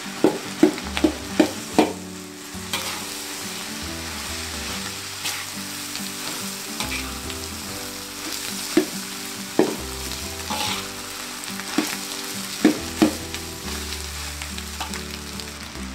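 Fried rice sizzling in a hot wok as a metal spatula stirs and breaks up the rice. A quick run of sharp spatula knocks against the wok in the first two seconds, then scattered knocks and scrapes over the steady sizzle.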